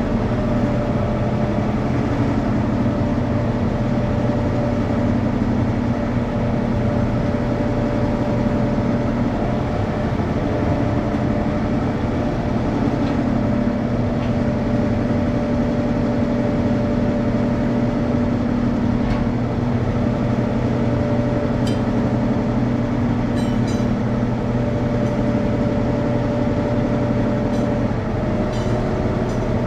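Steady drone of running machinery, with a few light clicks and taps near the end.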